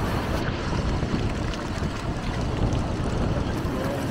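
Steady wind rumbling on the microphone, with surf washing on the beach behind it.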